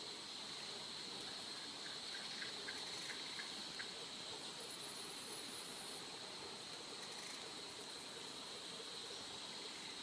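Steady high-pitched drone of a rainforest insect chorus. A run of faint quick chirps comes in the first few seconds, and a brief higher hiss comes about five seconds in.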